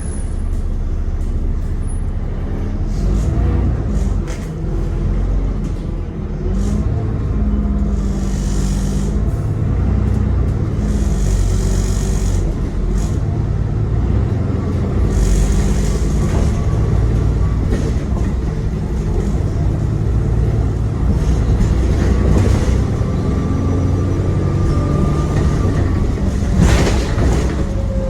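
Alexander Dennis Enviro400 (E40D) double-decker bus running under way, its engine rumbling steadily with a faint high turbo whine in the latter part. Several short hisses of air, typical of the air brakes, come between about 8 and 16 seconds in.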